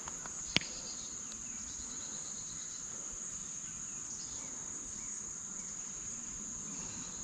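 Steady, high-pitched chorus of insects, one even drone without pauses, with a single sharp click about half a second in.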